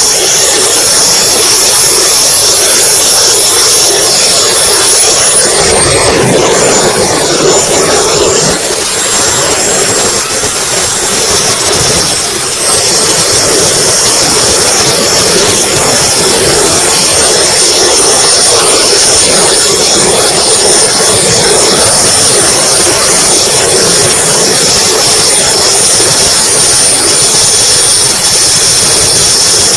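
RC model jet's small turbine engine running in flight, heard from a camera on board: a loud rush of air and exhaust with a thin high whine. The whine drops in pitch about five seconds in as the turbine spools down, and climbs partly back a little past halfway.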